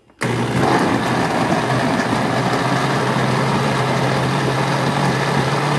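Kitchen blender switched on about a quarter second in and running steadily at full speed, chopping pineapple peels, parsley and mint leaves in water, with a constant motor hum under the whirring of the jar.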